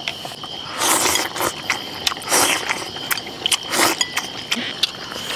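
A person slurping wide noodles from a bowl: three slurps about a second and a half apart, with light clicks of chopsticks on the bowl. Crickets chirp steadily underneath.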